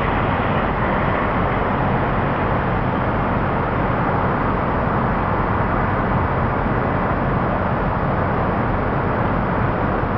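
Steady outdoor noise of a city at night: a constant rumble and hiss with no distinct events.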